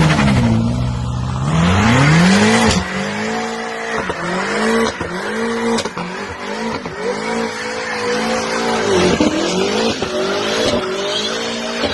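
BMW M5 F90's twin-turbo V8 revving up over the first few seconds, then a burnout: the rear tyres spin and squeal in a wavering tone that dips roughly once a second, over the engine noise.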